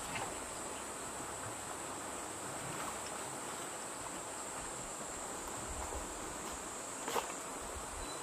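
Steady high-pitched insect drone from the forest, with a light knock near the end.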